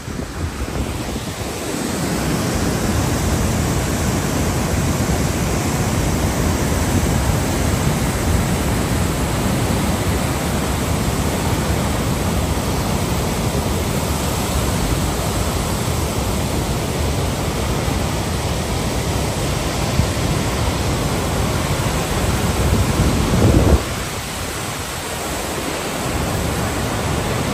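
Large waterfall rushing steadily, a dense wash of water noise, with wind buffeting the microphone; the deep low rumble cuts out abruptly near the end.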